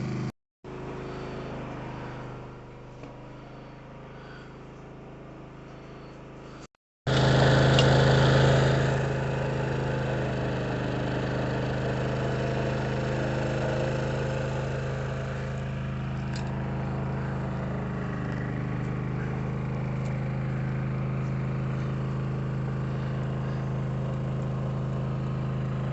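Steady engine hum at one fixed pitch, quieter at first, then louder and steady after a short break about seven seconds in.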